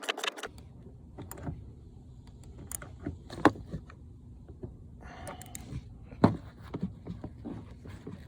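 A socket ratchet's rapid clicking stops about half a second in. Then come scattered metallic clinks and knocks of hand tools being handled, with two sharper knocks, as a bigger socket wrench is brought in to get more turns on a loose seatbelt anchor bolt.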